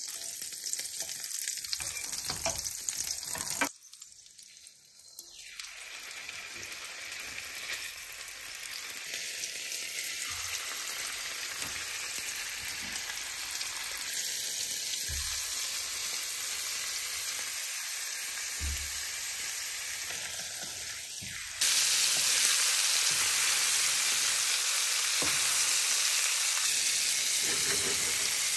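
Butter with a garlic clove sizzling in a nonstick frying pan, then meat rolls (involtini) frying in the bubbling butter. The sizzle drops suddenly about four seconds in, builds back steadily, and jumps louder near the three-quarter mark.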